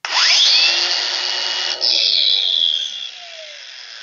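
Hercules 20 V brushless cordless angle grinder running free in the hand. It spins up to a high whine within about half a second, runs briefly, then the trigger is let go about two seconds in and it winds down with a falling whine.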